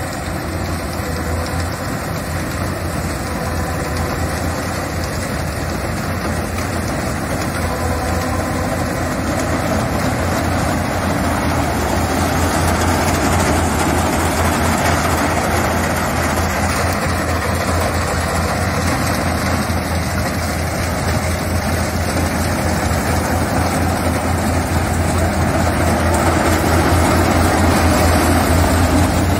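Yanmar AW70GV crawler combine harvester running while cutting rice: a steady diesel engine drone mixed with the noise of its threshing machinery, slowly growing louder as the harvester comes closer.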